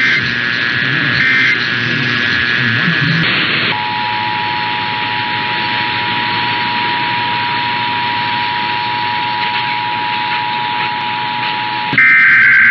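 Emergency Alert System broadcast tones over radio hiss. It opens with the end of a run of SAME digital header bursts, a harsh high warble. Then the EAS two-tone attention signal holds steady for about eight seconds, marking the start of an alert, and a loud new data burst cuts in near the end.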